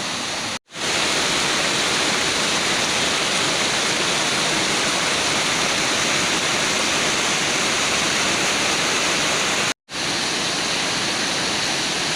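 Waterfall: a steady, loud rush of falling water, cutting out for an instant twice, once under a second in and again near the end.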